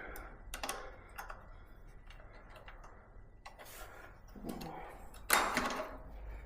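Small metal clicks and taps of hand tools working on an e-bike's rear disc brake, as a part is tightened. There is a louder handling noise about five seconds in.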